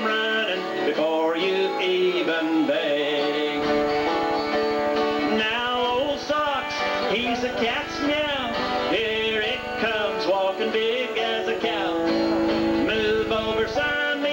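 Live country-style song played on acoustic and electric guitars, with a melodic line of bending notes over the chords.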